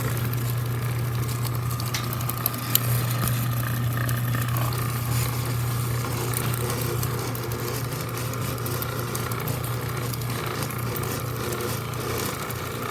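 Stanley 1/4 hp chain-drive garage door opener running steadily as it lowers the door: a low motor hum with light clicking and rattling from the drive.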